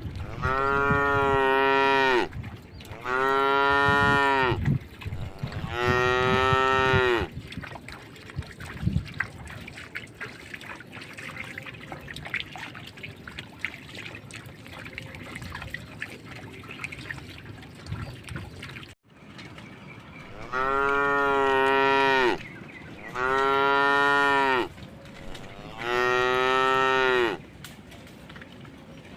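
A cow mooing: three long, drawn-out moos in quick succession, then after a quieter stretch of about twelve seconds, three more long moos of the same shape.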